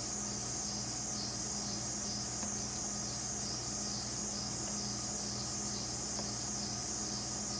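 Fry bread dough sizzling in hot oil in an electric skillet: a steady, even high hiss, with a low steady hum beneath.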